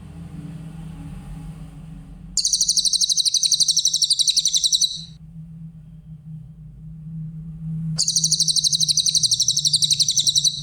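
Cililin song: two bouts of a fast, high trill of many short clipped notes, each about two and a half seconds long, the second starting about eight seconds in. A steady low hum runs underneath.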